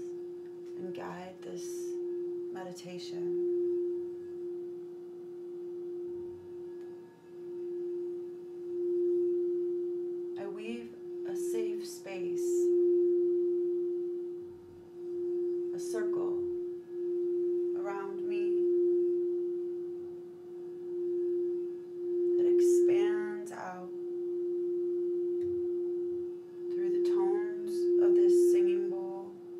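Quartz crystal singing bowl sounding one steady, pure tone as a mallet is drawn around its rim, the tone swelling and fading in slow waves. Several short sounds of another kind cut in over it now and then.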